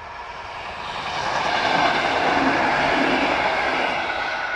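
Electric multiple unit passenger train passing at speed, its noise swelling to a peak about two seconds in and then fading as it moves away.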